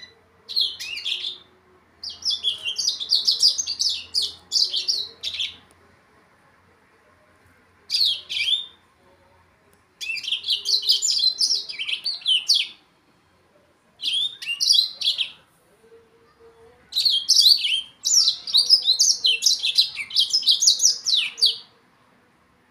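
Young yellow-fronted canary (Mozambique canary) singing in bursts of rapid, high twittering phrases, about six of them, each lasting up to several seconds, with short pauses between.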